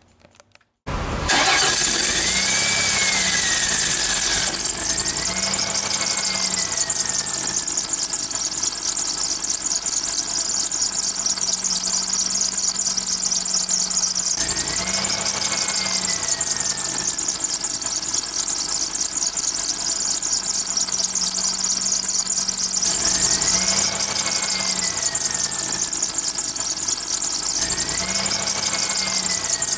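Car engine running with its wet accessory drive belt squealing loudly on the pulleys, a steady high screech with a lower squeal that rises and falls several times. The belt is slipping because it got wet. The sound starts about a second in.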